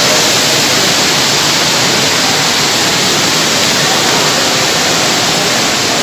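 Loud, steady rushing of running water.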